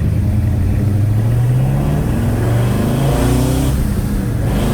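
Chevrolet 307 small-block V8 pulling at part throttle on the road, its revs climbing steadily, then dropping about four seconds in before climbing again.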